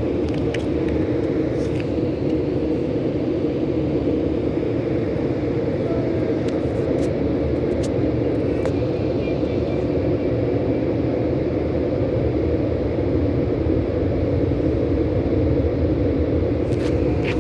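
Automatic car wash running, heard from inside the car: a steady, loud rumble of the wash machinery that is described as very noisy.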